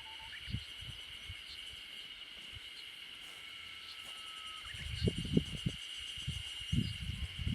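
Japanese bush warbler (uguisu) singing: a long, flat whistled note that ends in a quick upward flourish, about halfway through. It is set over a steady high insect drone. From about two-thirds of the way in come low, irregular thumps and rumbles, the loudest sounds here.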